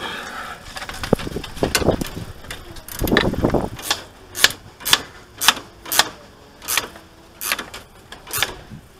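Spanner ratcheting on the top nut of a front anti-roll bar drop link as it is tightened: a run of about eight sharp clicks, half a second to a second apart, after some knocking and handling noise in the first few seconds.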